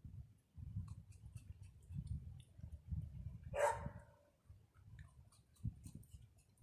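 A raccoon eating popcorn, close up: a steady run of chewing with small clicks and crunches. One short animal call sounds about three and a half seconds in.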